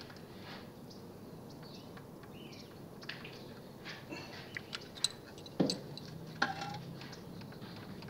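Light metallic clicks and taps of a hand tool and bicycle brake parts being handled while a rim-brake pad is adjusted: a scatter of small ticks with three sharper clinks around the middle.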